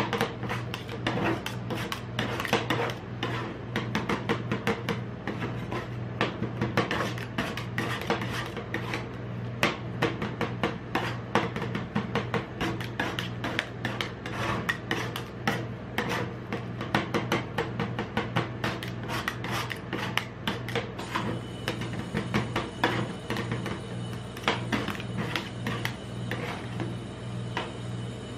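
Two metal spatulas chopping and scraping ice cream mixture on a steel cold plate: fast, uneven clacks and scrapes, over a steady low hum.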